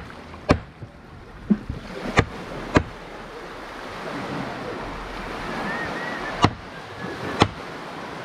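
Knife blades chopping strips of blackfish on a wooden cutting board and table: about six sharp knocks, spaced irregularly, with a pause in the middle. Surf washes on the shore behind.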